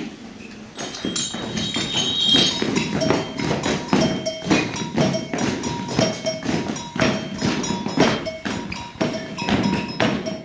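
Upbeat music for a stage dance number, with a steady percussive beat of about two hits a second and recurring pitched notes; a few high, bell-like tones ring out in the first couple of seconds.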